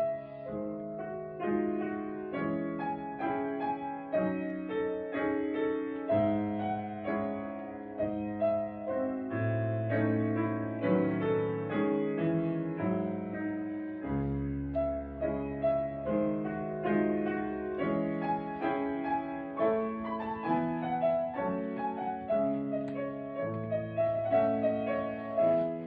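Piano playing a steady succession of notes and chords, with a deep bass note coming in about halfway through.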